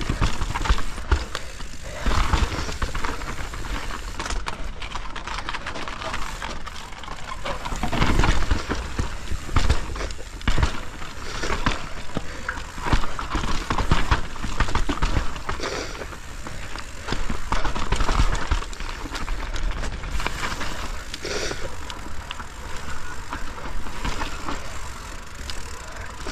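Mountain bike ridden down a snowy trail: tyres rolling over snow and wooden features, with the chain and frame rattling and knocking over the bumps.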